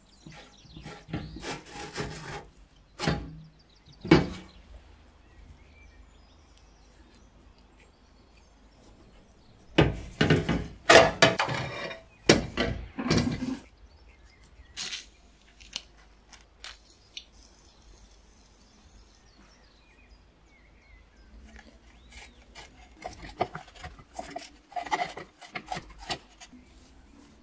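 Rusted parts of an antique kerosene stove being taken apart by hand: scraping, rubbing and clinks of rusty sheet metal, metal rods and the woven wick cloth. It comes in three bursts with quieter pauses between, the loudest about ten seconds in.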